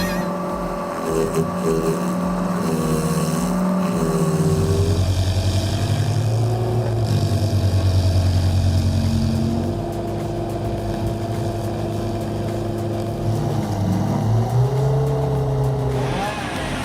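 A heavy machine's engine running steadily, its pitch dropping about four seconds in and rising again near the end as the load changes.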